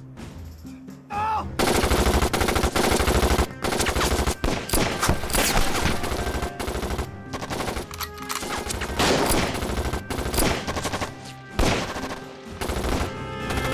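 Dense battle gunfire: rapid, overlapping rifle and machine-gun shots that start about a second and a half in.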